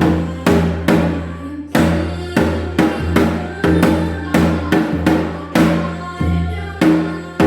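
Janggu (Korean hourglass drum) strokes in the semachi jangdan rhythm, about two a second with some gaps, played over a sustained pitched instrumental accompaniment.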